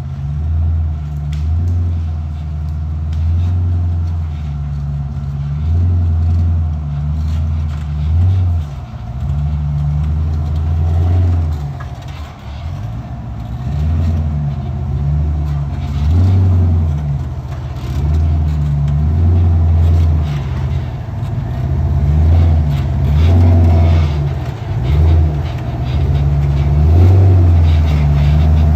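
Off-road Jeep's engine running at low speed over a rough trail, swelling and easing with the throttle, with scattered clicks and knocks.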